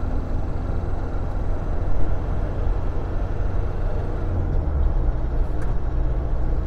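A 1987 VW camper with a turbocharged engine driving at road speed, heard from inside the cab as a steady low rumble of engine and road noise.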